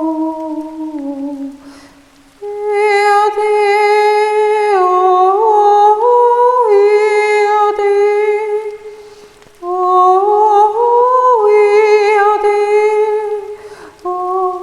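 A woman's wordless, improvised singing: long held notes that glide slowly up and down between pitches, broken by three short pauses for breath.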